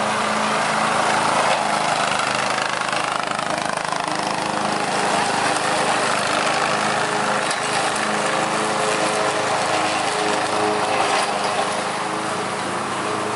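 Riding lawn mower's engine running steadily under load as it mows grass, a constant engine hum over the rush of the cutting deck.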